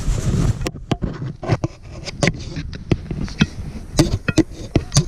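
Skis and ski poles working through powder snow: irregular sharp clicks and knocks, a few each second. Wind rush on the camera microphone dies away about a second in.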